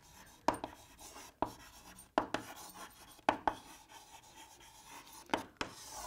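Chalk writing on a chalkboard: a few sharp taps of the chalk about a second apart, with faint scratchy strokes between them, as a word is written out.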